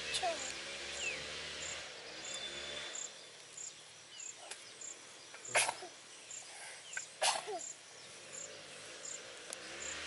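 Baby monkeys moving in tall grass, with a few short squeaks near the start and two sharp snaps about a second and a half apart in the middle. An insect chirps faintly and steadily about twice a second.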